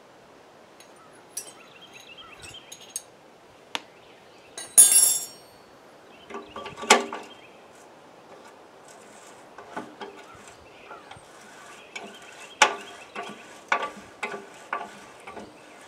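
Metal hand tools clinking and knocking as a wrench works the nut off a lawnmower wheel's axle, with a loud clatter about five seconds in and another about seven seconds in. From about twelve seconds in, a run of sharp clicks about two a second as the wrench is turned.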